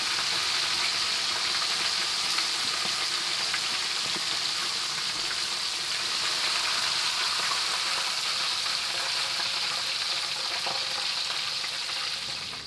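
Whole cornflour-coated red rock cod deep-frying in hot rice bran oil in a wok: a steady, dense sizzle that stops abruptly near the end.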